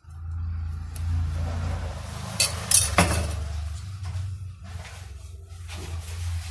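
Kitchen utensils clinking against dishes: a spoon knocking a few times on a jar or plate about two and a half to three seconds in, and once more near the end, over a steady low hum.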